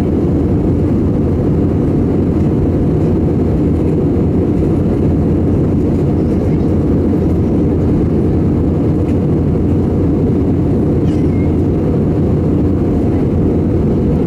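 Steady, loud cabin noise inside an Airbus A320 in flight: the low, even rumble of the engines and airflow over the fuselage.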